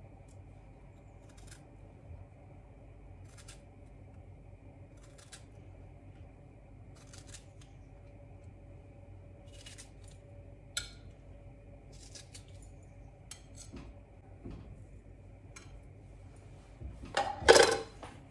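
Scattered light clicks and clinks of small hard objects being handled over a faint steady hum, with a louder clatter about a second before the end.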